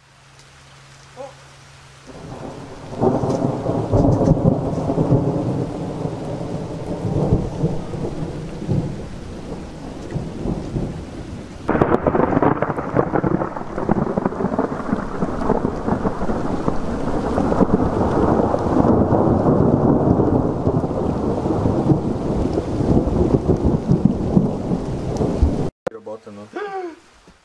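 Thunder rumbling and rolling on for over twenty seconds, with a second, sharper peal breaking in about halfway through that rolls on until the sound cuts off suddenly near the end.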